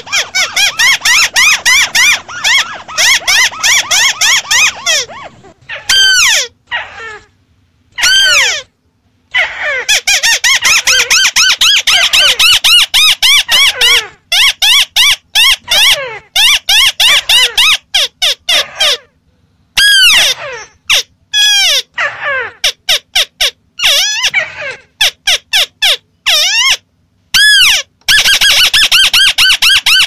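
White-browed crake calling: fast chattering runs of sharp, high, arching notes. The runs break into spaced single notes with short silent gaps in the middle and become dense again near the end.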